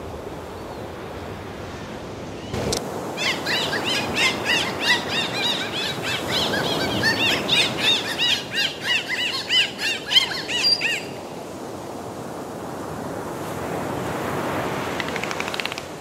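Dolphins whistling underwater: a rapid run of short arching whistles, two or three a second, with clicks among them, over a steady wash of water. The whistles stop about eleven seconds in, leaving only the water noise.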